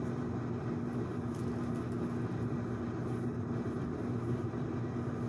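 Steady low mechanical hum with a faint pitched drone underneath, unchanging throughout.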